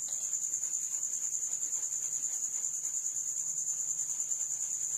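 A cricket trilling steadily at a high pitch.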